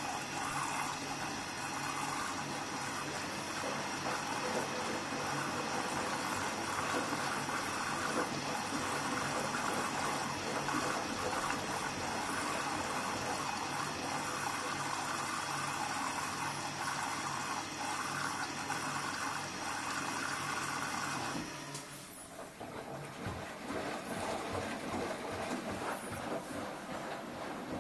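Hoover washing machine in its final rinse: water rushing through the machine with a steady mechanical hum, which cuts off suddenly about 21 seconds in. It is followed by quieter, uneven sounds from the machine.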